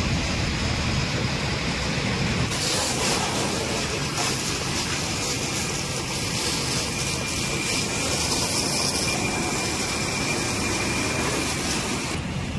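Steady rumble of a fire engine running its pump, under the hiss of a fire hose spraying water onto a burnt-out car. The hiss gets louder about two and a half seconds in and drops away just before the end.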